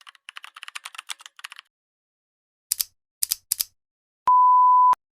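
A quick run of light clicks, like typing, for about a second and a half. Then three sharper clicks and a single steady electronic beep lasting under a second, the loudest sound here.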